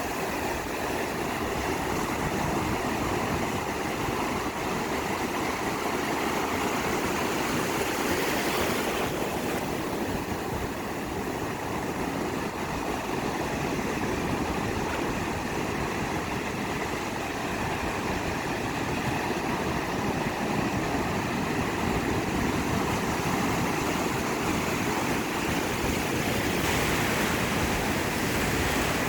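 Ocean surf on a sandy beach: a steady rushing wash of breaking waves, swelling brighter about eight seconds in and again near the end.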